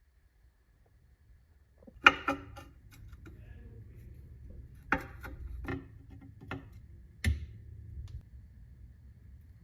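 A series of sharp clicks and knocks, about six of them at uneven intervals, starting about two seconds in, with a faint low hum underneath.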